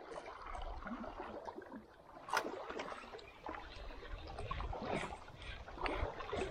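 Small waves lapping and splashing irregularly, with one sharp tick about two and a half seconds in.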